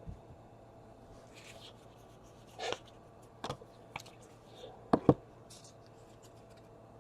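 Trading cards being handled: a few soft clicks and taps as cards are sorted and set down, with a faint rustle.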